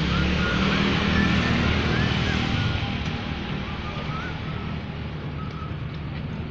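A motor vehicle engine running, a steady low rumble with a noisy hiss over it that eases off a little about halfway through.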